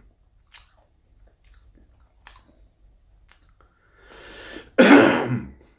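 A man coughs once, loudly, near the end, after a drawn breath, with faint chewing and mouth clicks before it. The cough comes from eating chili-spiced salt licorice candy, and he puts it down to the salt.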